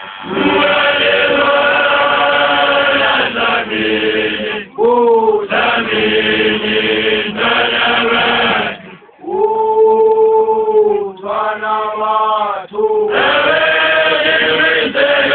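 A group of voices singing or chanting together on long held notes, in phrases of a few seconds with short breaks between them.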